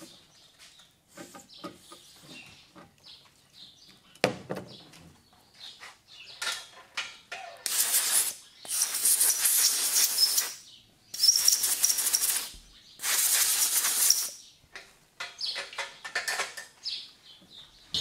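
Four short hissing blasts of compressed air from a blow gun, blowing verdigris out of a corroded 24-volt electric-motor power socket. Each blast lasts about a second and carries a faint whistle. Before them come small handling clicks and one sharp knock about four seconds in.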